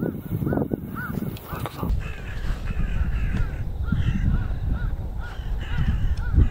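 A flock of birds calling, with harsh arched calls repeating and overlapping, growing more numerous about two seconds in, over low wind rumble on the microphone.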